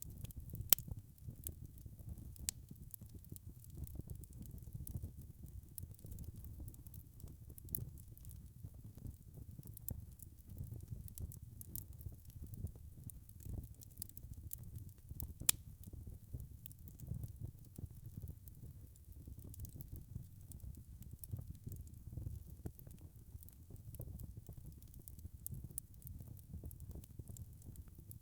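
Log fire burning: a low steady rumble of the flames with frequent small crackles and pops, and two sharper snaps, one near the start and one about halfway through.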